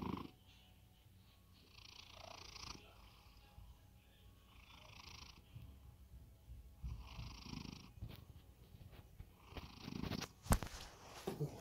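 A cat snoring softly in deep sleep, about one breath every two and a half seconds. A sharp click about ten and a half seconds in, with a few fainter clicks after it.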